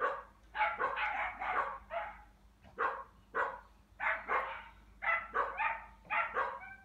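A dog barking over and over in short runs of quick barks, about two or three a second.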